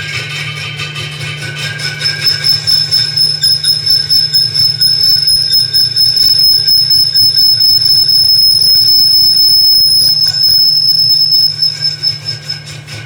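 A machine working steel gives a steady, high-pitched metallic squeal over a low hum. It grows quieter about a second before the end.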